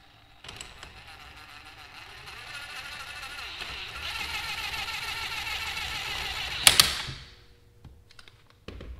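A cordless power tool spinning a nut down the threaded rod of a coil spring compressor clamp to snug it against the spring, whirring for about six seconds and growing louder as it tightens. It stops with a sharp clack.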